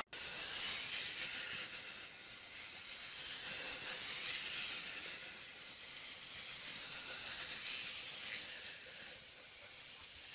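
A steady, faint hiss that swells and eases slightly in level, with no distinct knocks, calls or voices standing out.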